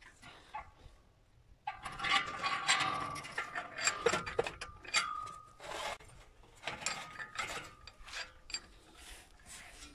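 A thin sheet-metal blank clamped in a bench vise, bent over by hand along its edge. The sheet flexes, rattles and scrapes against the vise jaws, with scattered clicks and a brief metallic ring near the middle. It starts about a second and a half in.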